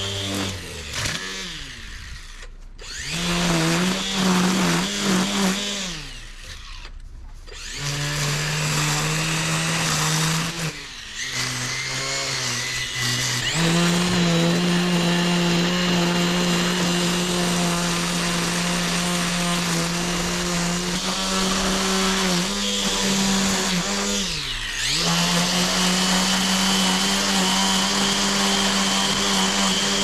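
Makita cordless string trimmer running, its electric motor whining as the spinning line edges long grass. In the first half the motor winds down and spins back up several times. It then runs at a steady pitch, with one brief dip and recovery about three-quarters of the way through.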